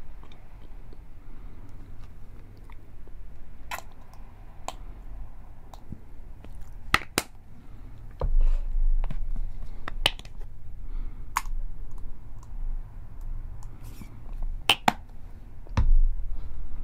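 Plastic Heinz squeeze bottles of ketchup and mustard being handled and squeezed, with a series of sharp clicks from the flip caps and the bottles being set down.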